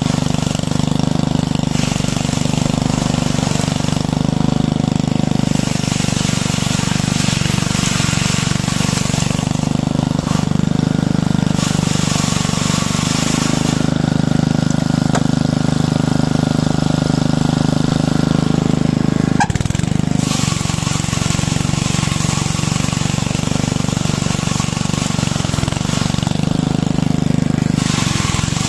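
Tielbürger tw50 weed brush working: its small petrol engine runs steadily while the spinning brush scrubs weeds out of the joints between paving stones. A scraping hiss rises and falls as the brush is pushed along.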